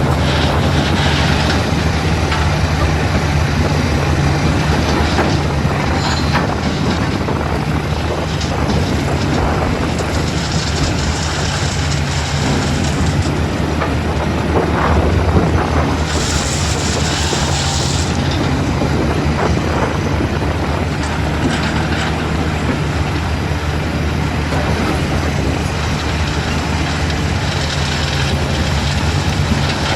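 Diesel engine of a JCB 3DX backhoe loader running steadily, with a hiss lasting about two seconds just past halfway.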